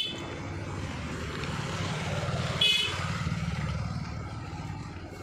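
A motor vehicle's engine passing close by, its rumble swelling about two to three seconds in. Two short, high-pitched horn toots sound, one right at the start and one a little past halfway, and each is the loudest moment.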